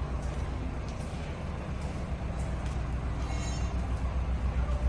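Low, steady engine rumble of heavy construction machinery with a fast regular pulse, growing louder toward the end; a faint high whine sounds briefly past the middle.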